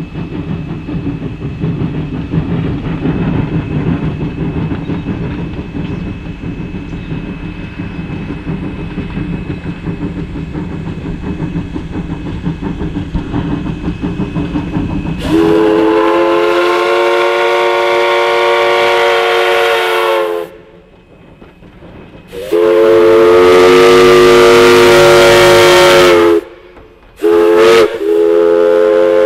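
Viscose Company #6, a small 0-4-0 steam tank locomotive, working hard with a steady exhaust rumble, then about halfway through blowing its steam whistle loudly: two long blasts, a short one and another long one, the grade-crossing signal.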